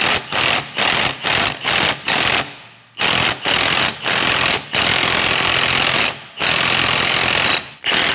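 Cordless impact wrench hammering on a lug nut, drawing a new wheel stud into the hub flange. It runs first in short trigger bursts, about three a second, then after a brief pause in longer runs of a second or more.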